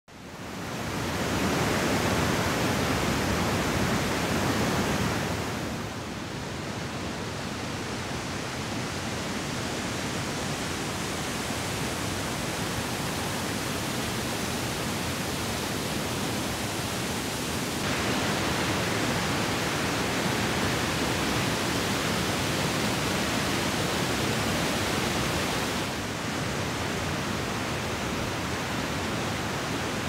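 Sankai Falls, a three-tiered waterfall, with water cascading over rock steps: a steady rush of falling water. It fades in at the start, and its loudness and tone shift abruptly three times as the view of the falls changes.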